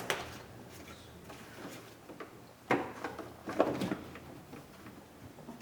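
Replacement interior door handle being pushed into place against the inner door: handling noise with a few sharp plastic-on-metal clicks and knocks, the loudest a little under three seconds in and again between three and a half and four seconds in.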